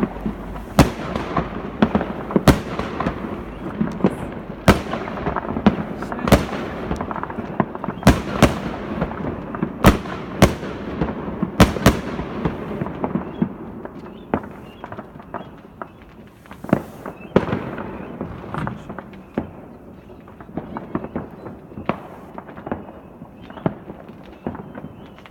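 Fireworks and firecrackers going off: a constant crackling din with loud, sharp bangs about every second for the first twelve seconds, then sparser and quieter bangs.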